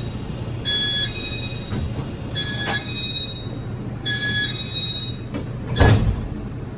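Car-to-car gangway of a Taiwan Railways push-pull Tze-Chiang express train under way: a steady low running rumble, a short high-pitched squeal three times at even intervals, and a loud knock near the end.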